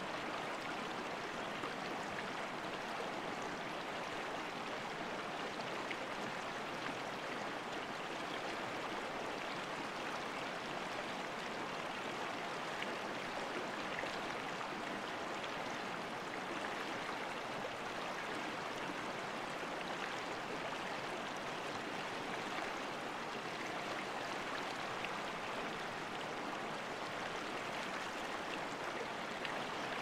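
Clear, shallow stream flowing over stones below a small cascade: a steady, even rush of water.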